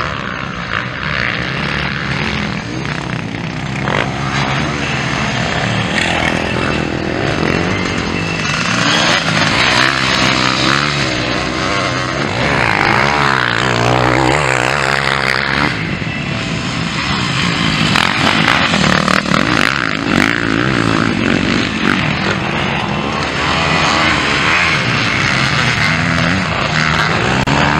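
Several motocross dirt bikes, two-strokes among them, revving hard and backing off as they climb and jump a dirt hill, the engine pitch rising and falling again and again.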